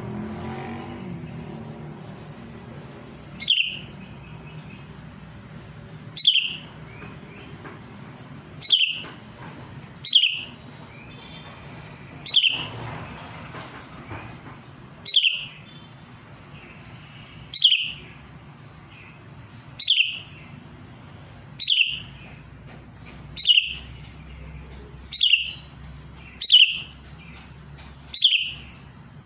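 Sooty-headed bulbul (cucak kutilang) giving a short, sharp call that drops in pitch, repeated about every two seconds, around a dozen times: the calling used to challenge a rival.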